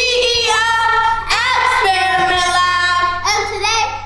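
Upbeat intro song with a child singing long held notes over a steady bass accompaniment.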